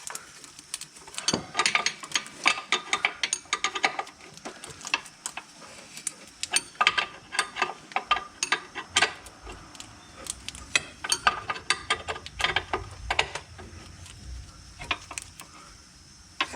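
Ratcheting wrench clicking in quick runs of short strokes as it turns the nut on a sway bar link.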